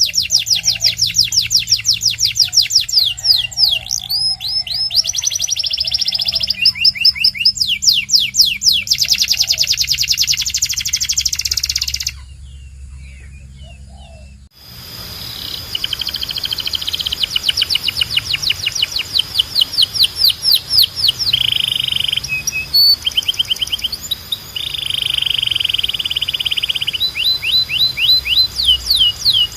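Domestic canary singing: fast trills of quickly repeated sweeping notes, broken by a few held rolling notes. About twelve seconds in the song stops for roughly two seconds, then the trills start again.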